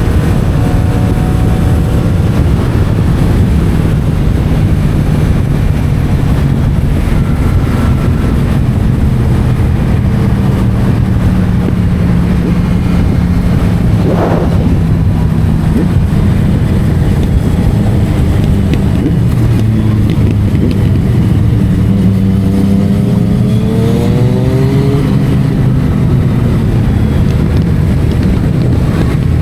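Yamaha MT-07 parallel-twin engine running through an Akrapovic titanium exhaust while riding, over a steady rush of wind. Its revs climb about three quarters of the way through.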